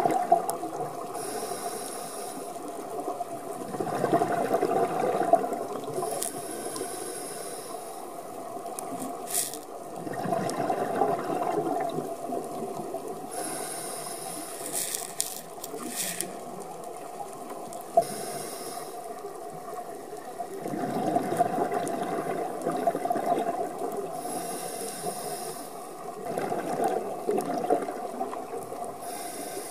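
Scuba regulator breathing underwater: a hiss on each inhale alternating with a louder rush of bubbling exhaust on each exhale, about five breaths.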